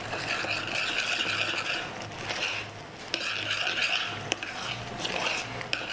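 A spoon stirring thick, risotto-like fregola sarda in a metal saucepan, scraping round the bottom of the pan in repeated strokes with a brief pause partway through. Two sharp taps of the spoon against the pan come in the second half.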